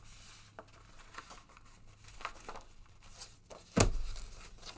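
Sheets of paper being handled and shuffled, with light rustles and small clicks, and one sharp thump against the table near the end.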